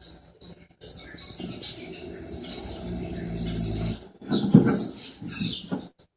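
Snoring: a long drawn breath that grows louder over about three seconds, then a loud short snort about four and a half seconds in, followed by a few smaller snuffles.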